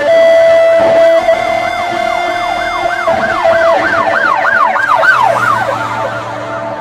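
Song intro: a siren-like wail sweeping up and down about three times a second over sustained keyboard tones. The wail dies away about a second before the end.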